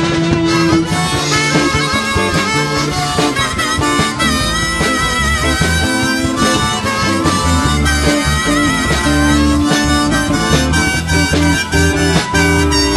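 Live rock band playing an instrumental break: bass guitar and drums under a lead solo of held notes with a wavering vibrato.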